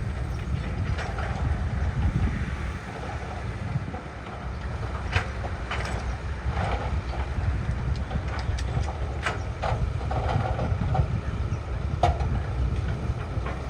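Diesel engine of a crawler earthmoving machine running steadily with a low rumble, with scattered sharp clanks from its steel tracks and working parts.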